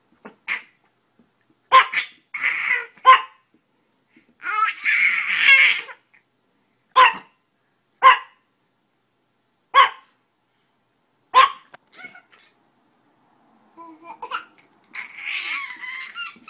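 A small chihuahua-type dog giving short, single sharp yaps, one every second or two, seven in all. A baby laughs and squeals between them, with baby babbling near the end.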